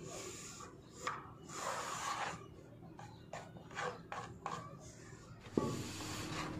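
Mason's straightedge and trowel scraping across wet sand-cement plaster (1:4 mortar) in a run of short rasping strokes. A sharp knock comes near the end.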